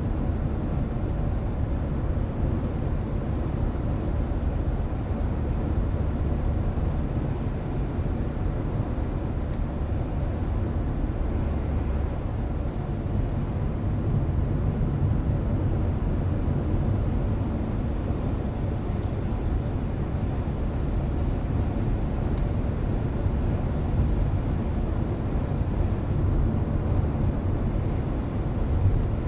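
Steady low rumble of a car driving along the road, tyre and engine noise heard from inside the cabin, with a couple of faint knocks near the end.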